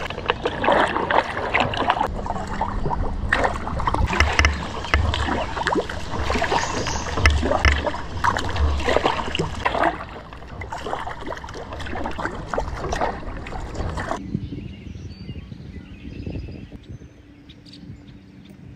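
Kayak paddle strokes: the blades dipping and splashing in the water, with drips and sloshing along the hull, getting much quieter about fourteen seconds in.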